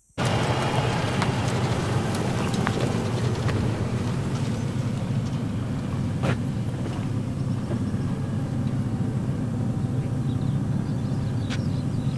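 Steady low rumble of a Ford pickup truck's engine as the truck moves slowly along a dirt track, with a few light clicks.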